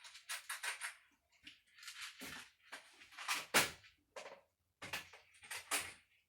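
A string of irregular rustles, clatters and light knocks from things being handled and shifted about.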